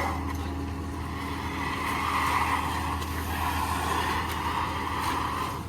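Concrete mixer truck's diesel engine running steadily, with a rushing noise that swells and fades every second or two.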